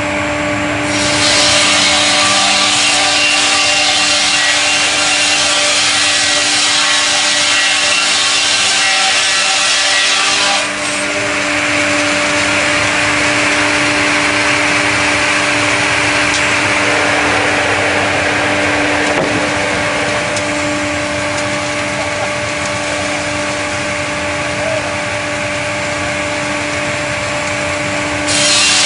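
StrojCAD KR 58 L6 log sawing machine running with a steady hum while its blade saws through a log. The cutting hiss is strongest from about a second in until about eleven seconds, is lighter after that, and grows strong again near the end.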